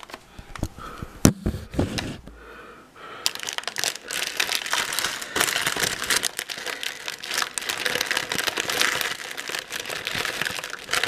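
Crinkly plastic wrapping of a chocolate Easter egg being carefully unwrapped: a few sharp crackles, a short lull, then steady crinkling from about three seconds in.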